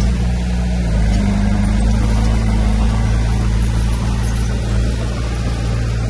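Diesel engine of heavy earthmoving equipment running steadily, with its note rising slightly and getting a little louder about a second in.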